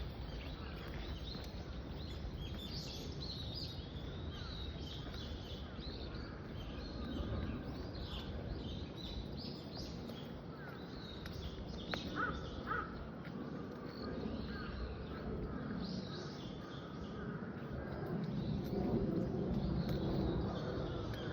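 Birds calling in wooded grounds, crows cawing among many short, high chirps, over a steady outdoor background hiss. Lower-pitched background noise grows louder near the end.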